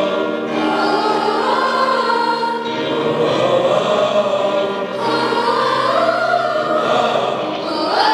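Large mixed choir of boys' and girls' voices singing sustained notes together, with piano accompaniment.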